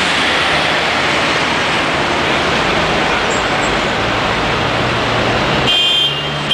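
Orion V city bus driving past close by: a steady rushing of diesel engine and tyres with a low engine tone, amid street traffic. A horn sounds near the end.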